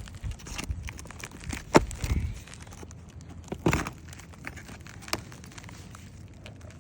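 Old, brittle asphalt roof shingles being handled and pulled at, crackling and tearing, with two louder sharp cracks about two and four seconds in.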